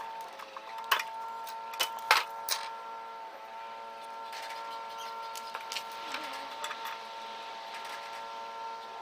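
Sharp clicks and knocks of hand work on a microwave's metal parts, a few loud ones in the first three seconds and lighter ticks after, over a steady hum.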